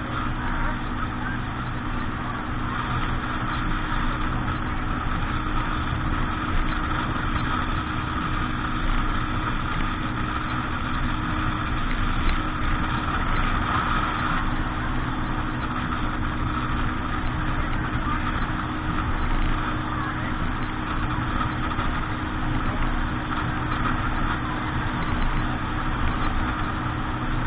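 Motorboat engine running steadily, with an even rush of noise over it.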